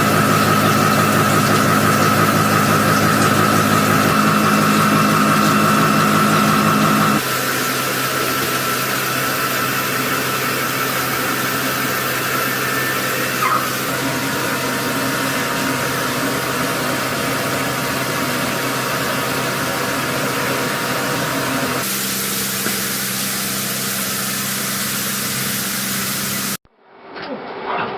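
Machinery running steadily: a motor hum with steady tones over a constant hiss. The sound changes abruptly about 7 seconds in and again about 22 seconds in, then cuts out shortly before the end.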